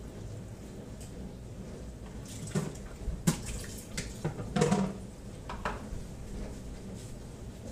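Water splashing in a few short bursts during kitchen work, with a sharp click about three seconds in.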